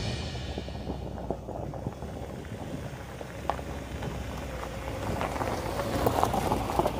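Jeep Wrangler with a trailer creeping along a rocky dirt trail: a low engine rumble with tyres crunching and popping over loose stones, growing louder in the last few seconds as it passes close by.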